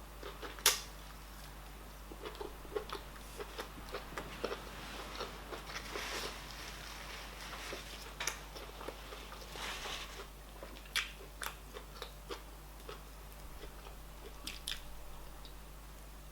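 Close-up eating of fufu with oha soup and its meats: chewing, with scattered sharp mouth clicks and one louder click about half a second in.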